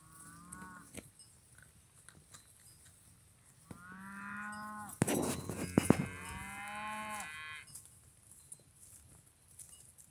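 Highland cattle mooing: a short, faint moo at the start, then two longer, louder moos about four and six seconds in, each dropping in pitch at the end. A few sharp knocks come between the two long moos and are louder than either.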